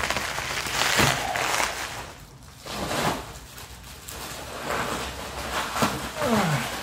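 Bubble wrap and plastic packing crinkling and rustling as it is handled, with a short lull about two seconds in and a few brief squeaks near the end.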